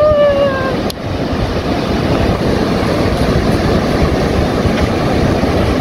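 Ocean surf breaking on the beach with wind buffeting the microphone: a loud, steady noise, heaviest in the low end.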